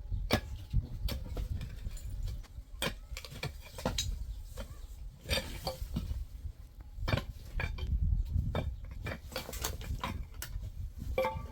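Irregular sharp clicks and clinks, a few every second, over a steady low rumble.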